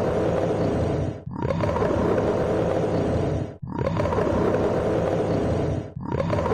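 Polar bear growling in long, rough calls of about two seconds each, one straight after another with only brief breaks.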